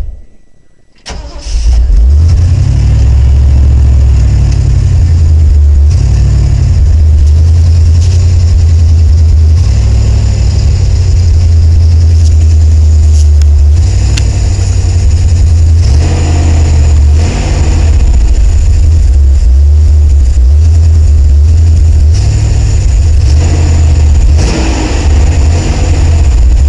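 1979 Ford F-150 pickup's engine starting about a second in and then running steadily and loudly, with a couple of swells in level later on.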